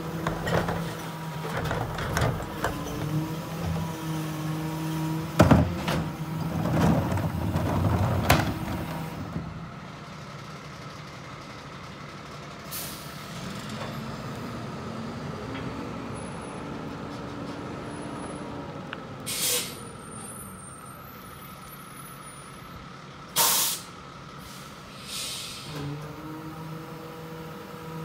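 Ez-Pack Apollo rear-loader garbage truck: the engine runs steadily while a cart is tipped and trash and the cart clatter into the hopper. The engine then drops back, the packer hums, and there are three sharp air-brake hisses in the second half. Near the end the engine note rises again as the truck moves off.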